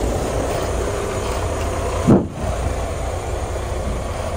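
Freightliner semi-truck's diesel engine idling just after being started, a steady low rumble with one brief louder sound about two seconds in.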